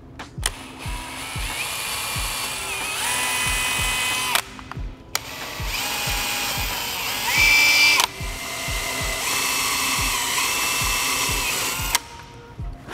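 A power drill boring holes through the trunk lip: pilot holes with a small bit, then enlarged with a step bit. The drill runs in three long bursts, its whine shifting in pitch as the speed changes. There is background music with a steady beat.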